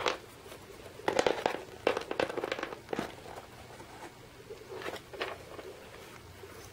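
Scattered rustles and light knocks of handling noise, coming in short clusters about a second apart and dying away after about five seconds.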